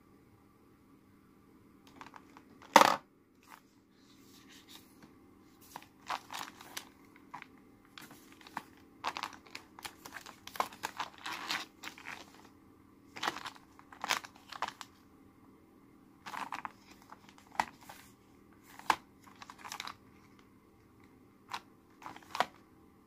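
Foil and plastic sheet-mask sachets crinkling and rustling in short, irregular bursts as they are handled and slid into a plastic fridge-door basket, with one sharp, loud clack about three seconds in. A faint steady hum runs underneath.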